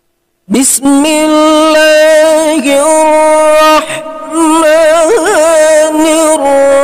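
A solo voice chanting a melodic Arabic Quranic recitation line, starting about half a second in, with long held notes ornamented by wavering runs and a brief breath pause near the middle. The voice carries an added echo/reverb effect that gives it a hall-like sound.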